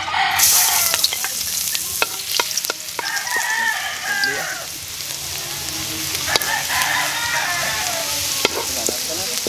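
Chopped garlic sizzling in hot oil in a steel wok, the sizzle starting about half a second in, with a few sharp clinks of the spatula against the pan. A rooster crows twice.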